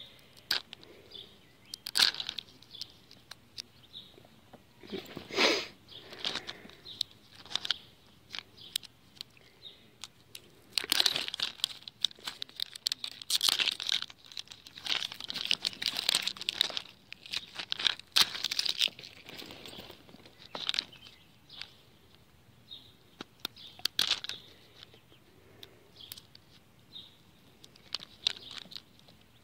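Plastic wrapper being peeled and torn off a toy capsule ball, crinkling and tearing in irregular bursts with scattered sharp clicks.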